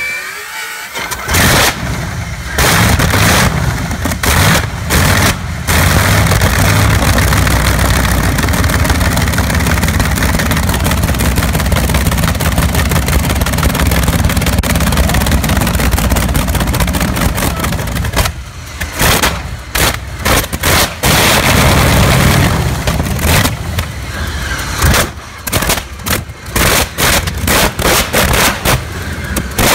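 Old Curtiss-Wright aircraft engine on a test stand cold-starting through short open exhaust stacks. It catches suddenly and fires unevenly for a few seconds, runs steadily and loud, then from about two-thirds of the way through runs unevenly with repeated dips in level.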